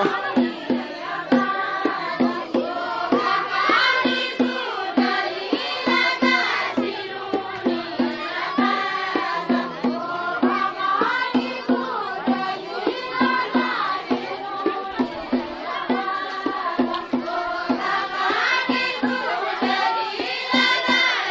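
Group of voices singing a Kumaoni jhoda (chanchari) folk song in chorus, with a steady beat about twice a second.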